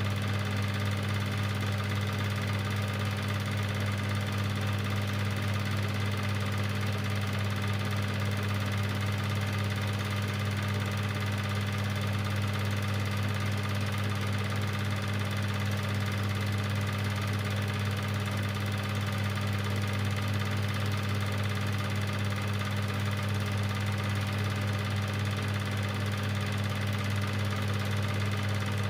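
Cine film projector running: a steady motor hum with a fast, even clatter of the film-advance mechanism.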